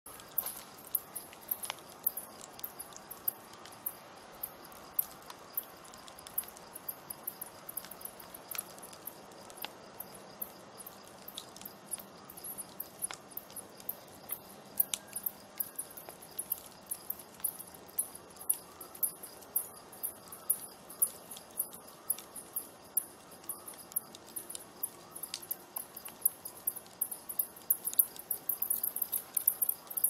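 Campfire wood burning with sharp, irregular crackles and pops, coming thicker near the end. Crickets chirp steadily in the background.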